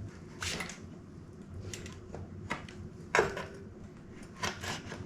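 Handling noise from an electric mountain bike's rear wheel being worked into the frame: a handful of scattered knocks and rubs, with the sharpest knock about three seconds in.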